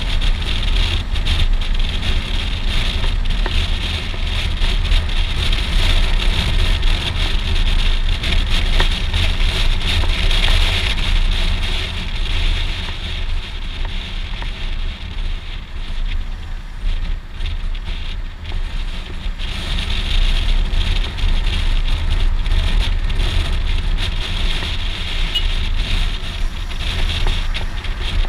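Wind buffeting on a helmet-mounted camera mixed with a Suzuki V-Strom 650 XT's V-twin engine running as the motorcycle is ridden along a road. The noise eases for several seconds around the middle, then builds again.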